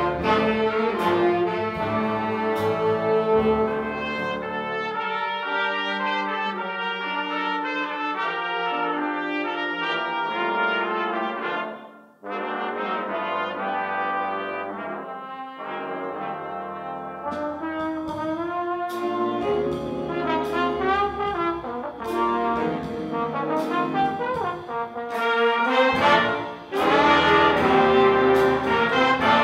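Jazz big band playing, with a trombone featured as soloist over saxophones, trumpets and rhythm section. The band drops out briefly about twelve seconds in, plays thinner for a few seconds, then comes back fuller with cymbal hits and is loudest near the end.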